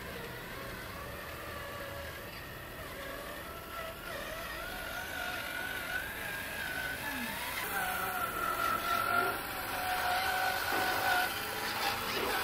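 Whine of the electric drive motors and gearbox of a 1/14-scale RC dump truck as it drives off loaded with soil, the pitch wavering up and down with speed and getting louder in the second half.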